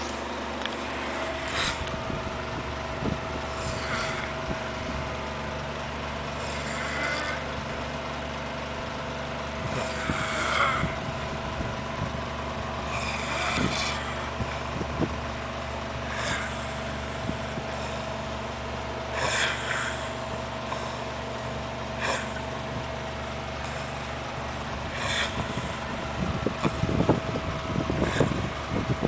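A sleeping man snoring, one snore about every three seconds, over a steady hum. A few short knocks come near the end.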